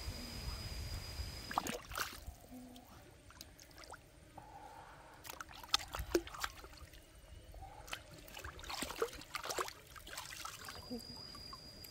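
Hands washing a raw, opened chicken carcass in shallow stream water: irregular splashing, sloshing and dripping as the carcass is rubbed and moved in the water.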